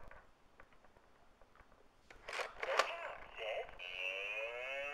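Electronic See 'n Say farm toy: faint clicks while its pointer spins, then the toy's recorded voice from its small speaker about two seconds in, followed near the end by a wavering animal call.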